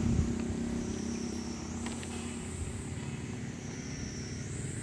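High, shrill chorus of cicadas, its pitch stepping up and down every couple of seconds, over a steady low engine hum.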